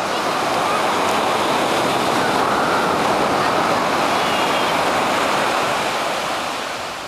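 Ocean surf washing onto a sandy beach: a steady rush that swells over the first couple of seconds and eases off near the end.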